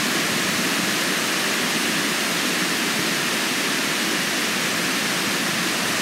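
Heavy rain pouring down, a steady, even hiss.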